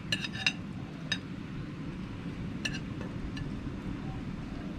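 Light clinks of a utensil against cookware while ingredients go into a pot: a quick cluster at the start, then single clinks about a second in and twice more later, over a steady low background rumble.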